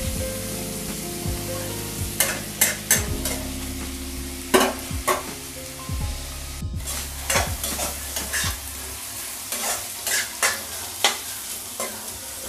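Diced onion, carrot, capsicum, peas and potato stir-frying in a kadai: a steady sizzle with a spatula scraping and knocking against the pan in irregular strokes.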